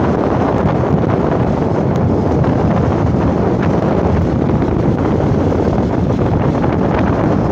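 Wind rushing steadily over the microphone of a motorcycle on the move, a loud, even rumble with no breaks.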